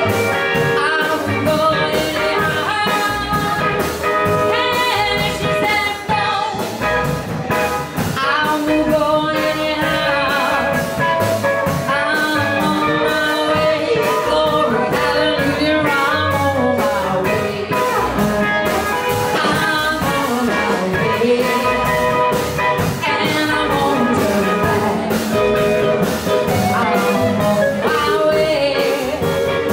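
A live blues band playing a 1950s-style blues number: vocals over electric guitar, acoustic guitar and drums, with a steady beat.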